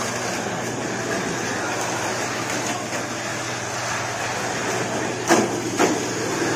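Steady background noise of a busy indoor race venue, a low hum under a hiss, with two short sharp sounds a half-second apart about five seconds in.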